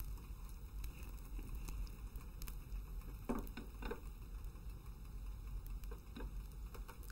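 Ghee heating in a hot non-stick frying pan, with faint crackling and pattering as it melts and starts to sizzle. Two brief soft knocks from the spatula come a little past the middle.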